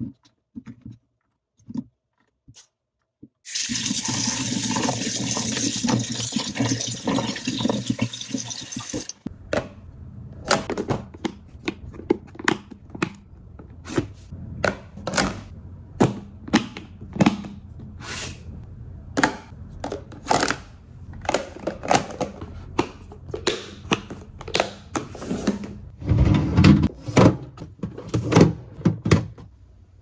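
Tap water running into a stainless steel sink for about five seconds, starting a few seconds in, as produce is rinsed in a plastic colander basket. Then many sharp clicks and knocks of plastic produce containers being handled and their clip lids snapped shut, with a few louder knocks near the end.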